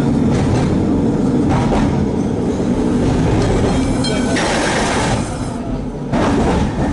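Old Melbourne tram running along its street tracks, heard from on board: a steady rumble of the car and its wheels on the rails with a few clacks, and a louder rush of noise a little past halfway.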